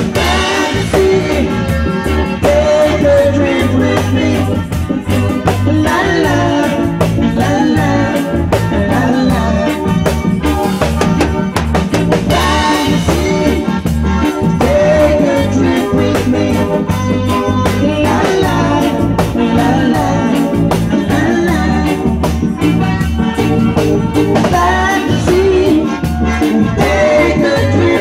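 A small live band playing an amplified number together: drum kit, electric guitars, electric bass and electronic keyboard, with a steady beat and a prominent bass line.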